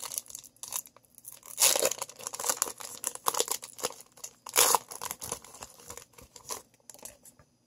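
Foil baseball card pack wrapper being torn open and crinkled by hand, in irregular crackling bursts, loudest about one and a half seconds in and again just past the middle.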